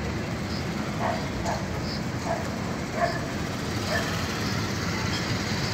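A dog barking in short, repeated barks, about one every half second to second, over a steady low background rumble.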